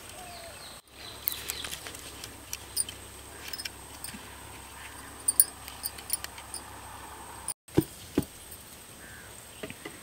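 Thin steel wire being wound and twisted tight around green bamboo poles: scattered small clicks and scrapes of wire on bamboo. The sound cuts out briefly twice.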